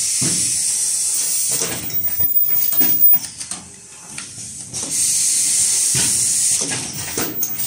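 Fully automatic cup mask machine cycling: a long hiss of compressed air venting from its pneumatic cylinders, a sharp mechanical clack about three seconds in, then another long hiss about five seconds in.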